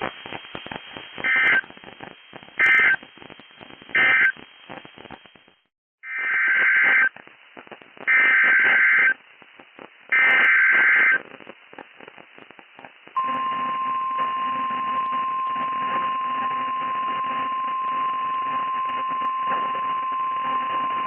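NOAA Weather Radio alert sequence over radio hiss. Three short buzzing SAME data bursts end the previous warning. After a brief dropout come three longer SAME header bursts announcing the next warning. A little past halfway, the steady 1050 Hz warning alarm tone starts and holds.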